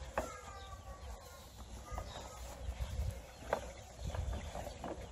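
Plastic wheels of a Bobby-Car ride-on toy knocking and clattering irregularly as it rolls over a bumpy lawn. A short high-pitched call sounds once, about a quarter of a second in.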